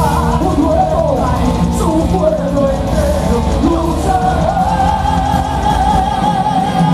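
Live heavy metal band playing: electric guitars, bass and drums under singing, with a long held sung note with vibrato in the second half.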